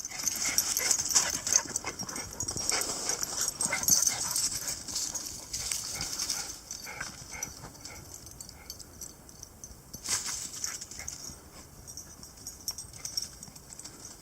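A dog whimpering and yipping, busiest in the first few seconds, over a steady high hiss of insects, with one sharp louder sound about ten seconds in.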